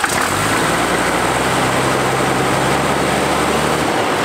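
First-generation Dodge Ram's 5.9 Cummins 12-valve diesel, just fired up, idling low and steady after its injection-pump idle screw was backed off to cure a runaway-like high idle. The engine note stops near the end.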